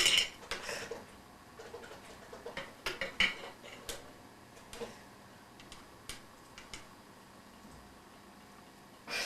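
Faint, scattered small clicks and light metallic clinks, a few stronger ones about three seconds in: a screwdriver and loose screws being handled while toilet tank parts are unscrewed.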